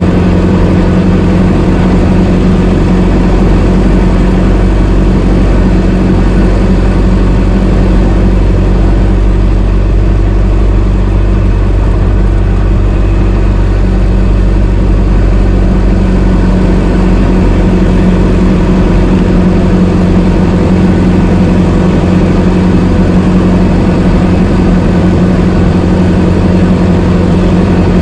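Antique car engine running steadily at a constant pitch.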